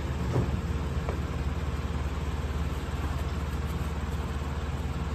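Steady low mechanical hum of a running appliance motor, unchanging throughout.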